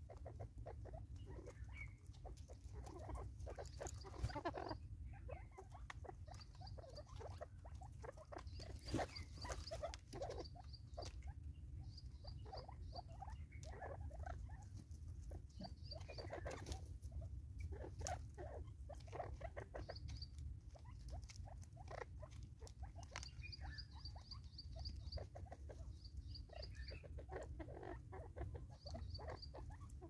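Francolins pecking and scratching at seed on a wooden stump: a constant irregular patter of taps and scuffs. Short runs of high, quick peeping calls come every few seconds.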